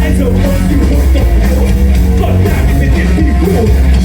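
Punk band playing live through a concert PA, loud, with heavy sustained bass and regular drum hits.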